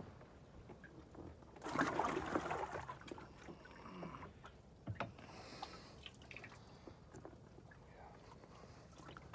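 Water splashing and sloshing in a bass boat's livewell as bass are lifted out by hand and dropped into a water-filled weigh bag. The splashing is loudest for about a second and a half near the start, and there is a sharp knock about five seconds in.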